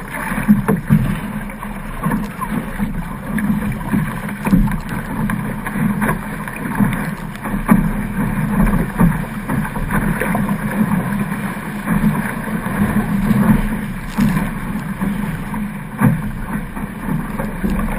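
Sabre sailing dinghy hull slicing fast through choppy water: a constant rush of water and spray with irregular splashes and slaps against the hull, and wind buffeting the microphone.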